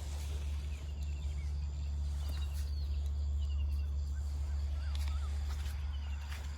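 Small birds chirping faintly in short runs of quick notes, over a steady low rumble and a few light clicks.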